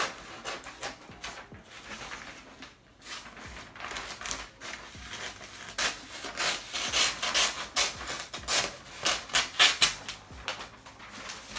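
Gift-wrapping paper rustling and crinkling as a large sheet is lifted and handled, with a denser run of crisp crackles from about six to ten seconds in.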